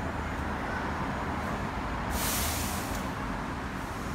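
Steady low rumble of city traffic, with a sharp hiss lasting under a second about two seconds in.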